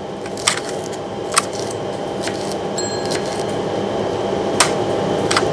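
Kitchen knife slicing celery stalks on a plastic cutting board: a handful of separate sharp taps as the blade meets the board, over a steady rushing kitchen background.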